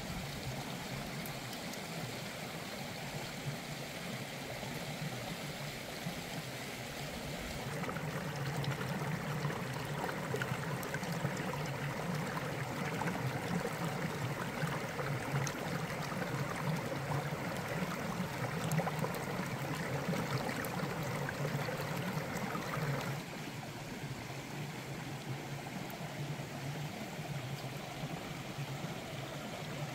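Shallow stream rushing and gurgling over rocks, a steady watery noise. It gets louder about eight seconds in and drops back about fifteen seconds later.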